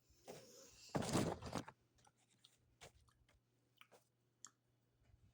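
Crunching and chewing of Cinnamon Toast Crunch cereal pieces, loudest about a second in, followed by faint scattered clicks.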